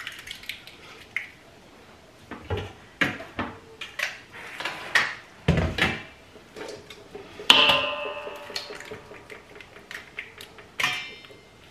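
Eggs being cracked one after another on a stainless steel mixing bowl: a series of sharp taps and knocks, one about two-thirds of the way in leaving the metal bowl ringing briefly.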